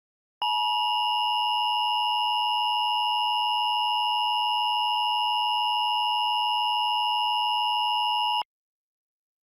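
Emergency Alert System attention signal: a steady two-tone alarm, 853 and 960 Hz sounded together. It starts about half a second in, holds for about eight seconds, and cuts off abruptly about a second before the end.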